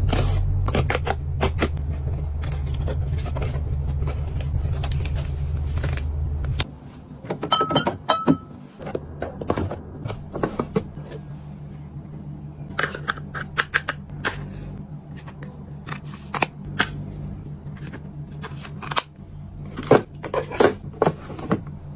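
Hands handling packaging and storage: crisp clicks, taps and light scrapes of a cardboard coffee box being opened and set into a plastic bin, and of a small plastic organiser drawer sliding out. A steady low rumble underlies the first several seconds and stops abruptly about seven seconds in.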